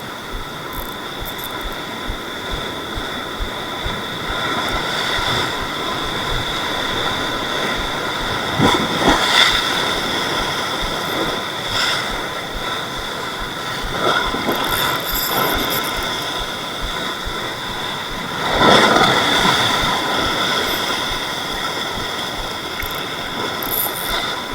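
Heavy surf washing against rocks, with louder surges about 9, 14 and 19 seconds in, over a steady high whine.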